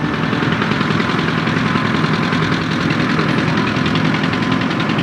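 Tractor engine running steadily with a fast, even pulsing.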